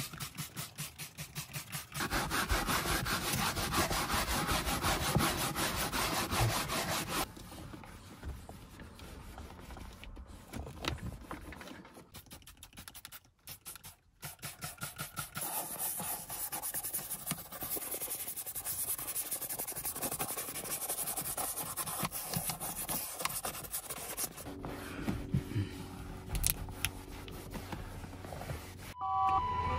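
Hand cleaning of car upholstery and interior trim: a spray bottle of cleaner squirted and a cloth rubbed back and forth over carpet, seat and headliner. There are several short sections with brief breaks between them. The strokes are fast and loudest a couple of seconds in.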